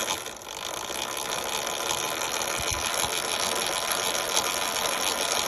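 Sur-Ron X electric dirt bike's chain drive running slowly, the chain and sprockets making a steady, dense clicking rattle. The jackshaft sprocket runs out of true, tightening the chain in one spot, which the owner takes for the source of the clicking on the main drive chain.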